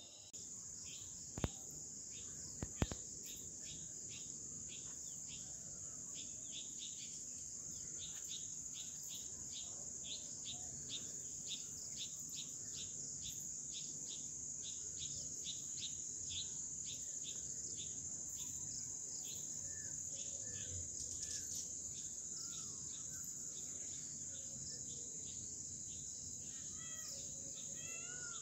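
Faint evening insect chorus: a steady high cricket trill with repeated shorter chirps over it. Two sharp clicks come about a second and a half and three seconds in, and a bird chirps a few times near the end.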